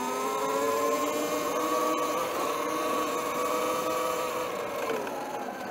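E Ride Pro SS 2.0 electric dirt bike's 72-volt motor whining under throttle, with wind and tyre noise. The whine rises slightly as the bike picks up speed, holds steady, then drops away near the end as the throttle eases.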